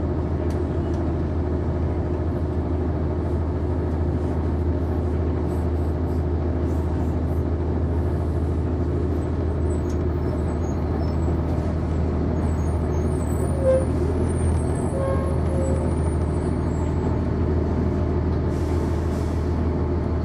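The Cummins ISC straight-six diesel of a 1999 NovaBus RTS transit bus, heard from on board, running with a steady low drone. Faint high squeaks come through in the middle, and a short hiss of air comes near the end.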